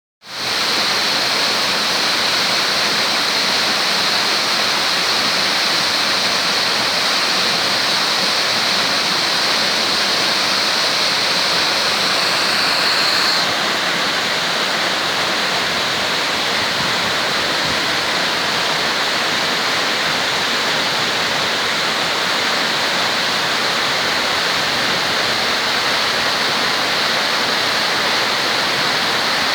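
Waterfall pouring, a loud steady rush of falling water. A little under halfway through, the high hiss eases slightly and it becomes a touch quieter.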